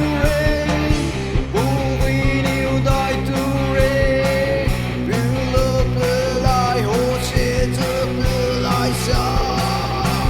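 Rock-style music with a sung melody over guitar and a steady beat.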